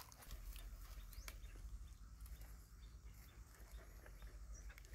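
Faint, scattered clicks and rustles of dogs and puppies eating off the grass, with a low steady rumble underneath.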